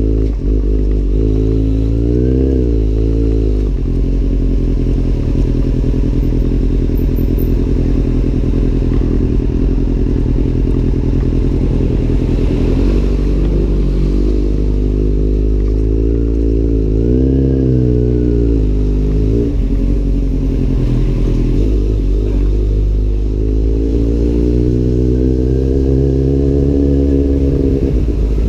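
Kawasaki Z800's inline-four engine running through an Arrow aftermarket exhaust, its revs climbing and dropping several times, with a longer climb near the end.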